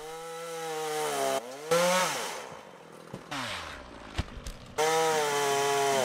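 Gas chainsaw revving up and dropping back to a low idle. About five seconds in it is suddenly opened to full throttle and held there, with a single sharp knock just before.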